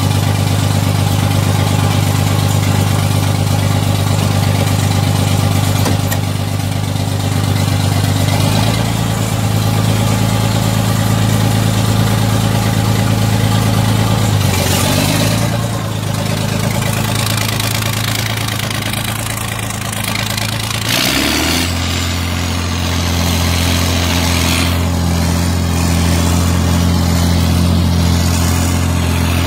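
John Deere 4430's six-cylinder turbo diesel running, heard from the cab. Its engine note shifts three times as the tractor is put in gear and pulls away.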